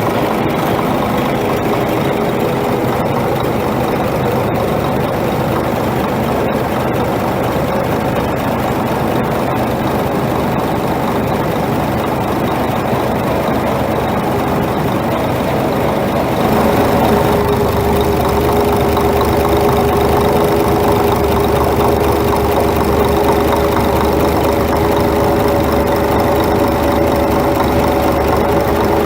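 Scania R420 truck's 12-litre straight-six diesel engine running at idle with a knock in it, a sign of an internal engine fault. About halfway through it gets a little louder and hissier, with a stronger steady hum.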